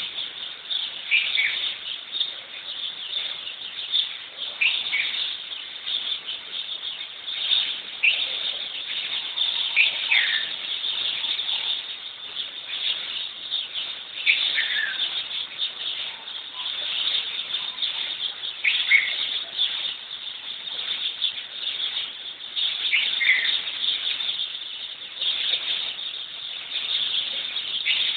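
A morning chorus of many birds chirping and twittering without a break. Every few seconds one call slides downward in pitch above the chatter.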